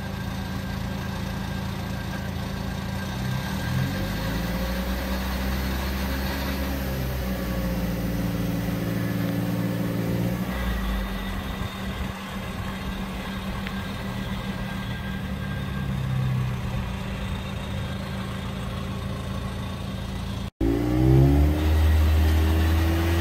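Suzuki Swift Sport ZC33S's turbocharged 1.4-litre four-cylinder engine pulling away slowly in low gear, with the revs climbing and easing off a few times. After a sudden break near the end, it comes back louder and revs up.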